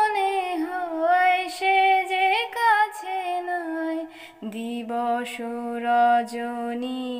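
Background music: a woman singing a slow melody with long held, wavering notes.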